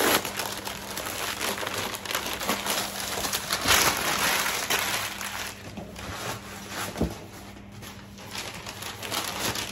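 Brown kraft wrapping paper being unfolded and crumpled by hand, a continuous rustling and crinkling that is loudest about four seconds in, with a couple of short knocks.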